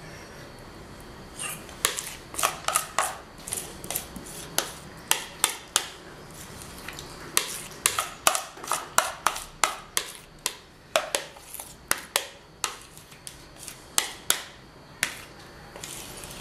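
Metal spoon scraping and knocking against the inside of a mixing bowl as thick quiche filling is scraped out: an irregular run of sharp clicks and taps, several a second, starting about a second and a half in and stopping just before the end.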